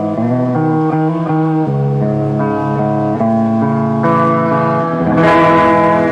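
Live rock band playing an instrumental passage, guitar chords ringing and changing over a steady low end, with a cymbal crash about five seconds in.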